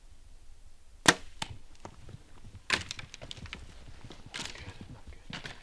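A bow shot at a bull elk: one sharp, loud crack about a second in, then snapping dead branches and rustling brush as the bull crashes away.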